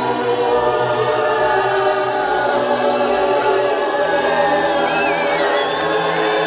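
Choral music on the soundtrack: a choir holding slow, sustained chords, with a higher wavering line coming in about five seconds in.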